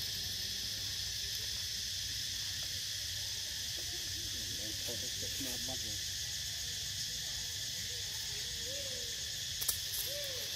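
Steady high-pitched drone of an insect chorus, with a couple of faint clicks near the end.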